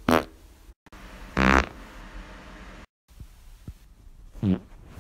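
Three human farts in quick succession. There is a buzzy one right at the start, a longer and louder one about a second and a half in, and a short one near the end.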